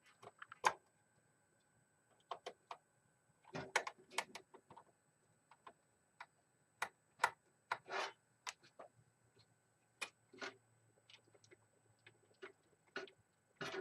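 A screwdriver and a small fan screw clicking and scraping against a CPU cooler's fan mount as the screw is worked into its hole: faint, irregular clicks with a few short scrapes.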